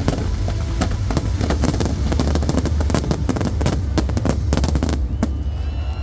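Fireworks going off in a dense barrage: rapid overlapping bangs and crackling over a deep rumble, thinning out about five seconds in.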